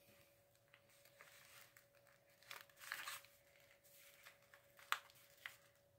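Faint crinkling and rustling of a paper wrapper being folded and pressed around a Rice Krispie treat in its plastic packet, with a couple of light clicks near the end.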